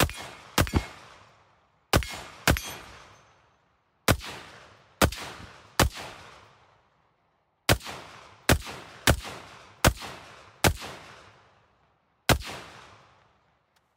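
AR-15-platform rifle in 5.56 with an Armaspec Rifter linear muzzle brake, blast shield off, firing thirteen loud semi-automatic shots at an uneven pace, each sharp report trailing off in a long echo. The last shot comes about two seconds before the end.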